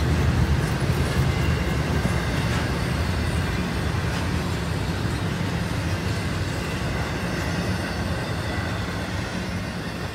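Double-stack intermodal container train's well cars rolling past, wheels rumbling and clacking on the rails. The sound fades slowly as the end of the train goes by.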